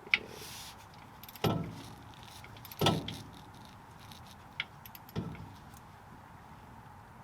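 Four separate sharp metallic clicks and clanks, each ringing briefly, from hand tools on the car's rear-end bolts as they are tightened.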